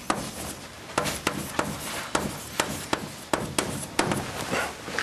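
Chalk writing on a blackboard: an irregular run of sharp taps and short scrapes, about two or three a second.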